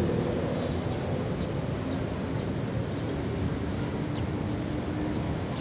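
Steady low rumble of city traffic, with a faint steady hum and a few faint high chirps.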